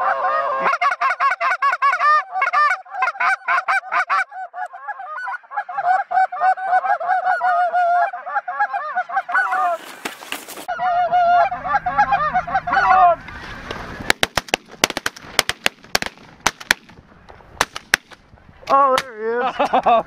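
Geese honking and calling as a flock circles low, then a rapid volley of a dozen or so shotgun shots from several hunters over about four seconds, starting about 14 seconds in.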